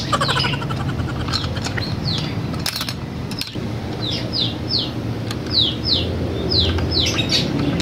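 A small bird chirping over and over, short high notes that slide downward, often in pairs, over a steady low hum. A few light clicks come about three seconds in.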